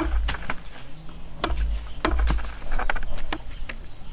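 Machete chopping cassava stems into short planting cuttings against a chopping block: about seven sharp strikes at irregular spacing.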